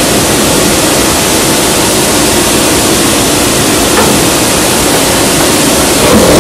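Shafted screw compactor running with a steady, loud, even noise as its spiral feeds a wooden bat into the compaction zone, with a faint crack about four seconds in.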